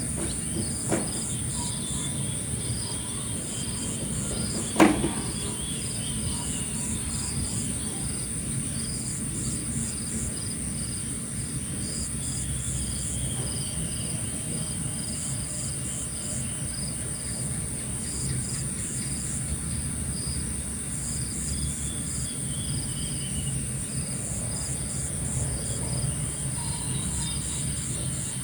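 Morning outdoor ambience dominated by a continuous, high-pitched insect chorus, with rows of short repeated chirps pulsing over it. A few falling bird whistles come through, and there is a single sharp click about five seconds in, over a low background rumble.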